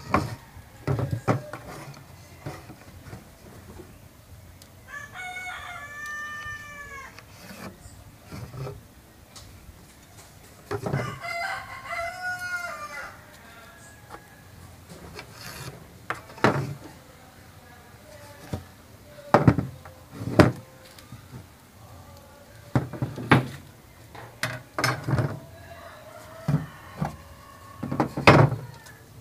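A steel carpenter's square and a pine board knocking on a workbench as they are set down and shifted, many times and irregularly. Twice, about five and eleven seconds in, a bird calls with a pitch that rises and falls, each call lasting a second or two.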